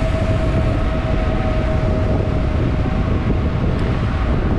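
Wind buffeting the camera's microphone while riding a bicycle, a loud steady rush weighted low. A thin steady whine sits under it and fades out about three seconds in.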